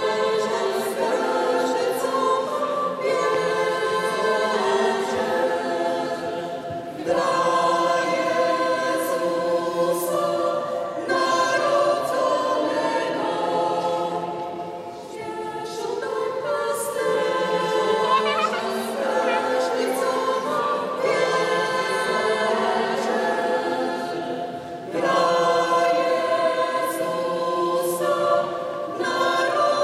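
Mixed choir of men's and women's voices singing a Ukrainian Christmas carol unaccompanied, in long phrases with brief breaks between them.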